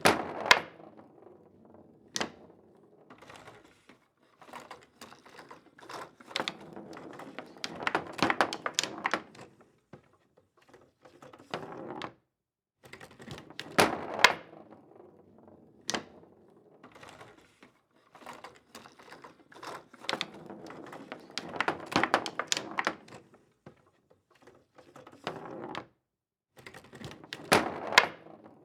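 Foosball table in play: the plastic players and rods clack against the ball and the table in flurries of rapid knocks lasting a few seconds each, with short pauses between. A few single sharp cracks, such as the one right at the start and one near the end, stand out above the rest.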